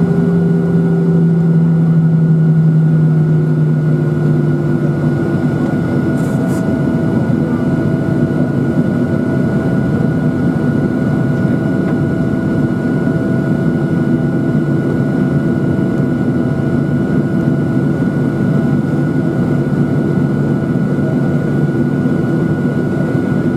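Boeing 737-800 cabin noise while taxiing, heard by the wing: the CFM56-7B engines running at idle with a steady whine over a constant rush. A low drone fades away over the first five seconds.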